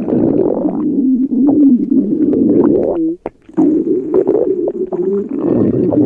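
Loud stomach growling and gurgling, a low wavering rumble that breaks off briefly a little past three seconds in and then carries on.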